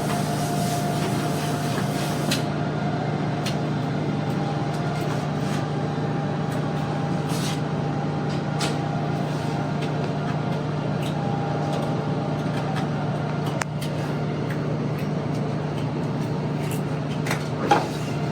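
A steady mechanical hum with a low drone, with a few faint clicks and a light knock near the end.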